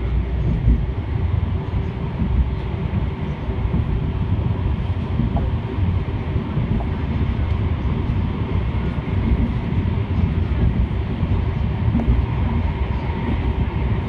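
Tram running along its rails, heard from inside the car: a steady low rumble of wheels on track with a faint steady hum over it.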